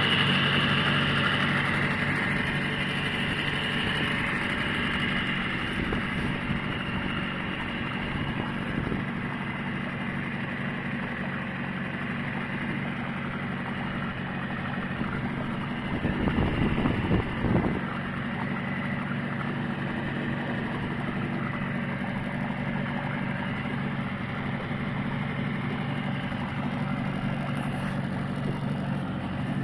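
Suzuki 6 hp outboard motor running steadily at low speed, with a brief louder rush of noise about halfway through.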